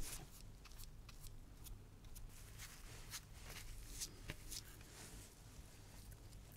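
Faint, irregular scratching and small ticks as the grain side of vegetable-tanned leather is roughed up so that glue will bond it to wood.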